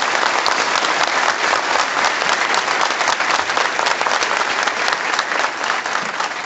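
Audience applauding, a dense sustained clapping that begins to die down near the end.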